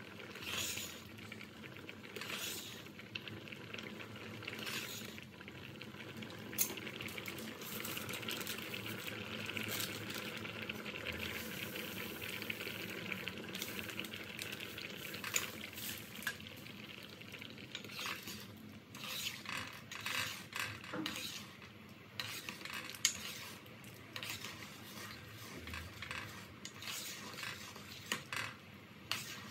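A stainless-steel ladle stirring sweet potato chunks in a pot of liquid, clinking and scraping against the pot again and again. About halfway through comes a steady hiss of sugar pouring from a plastic bag into the pot.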